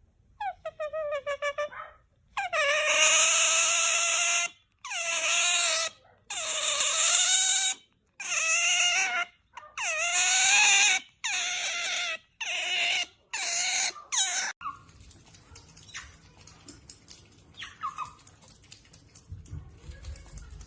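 Otter giving a string of loud, drawn-out squealing calls, about ten in a row, each a second or two long, stopping about fourteen seconds in. Faint clicks and small handling sounds follow.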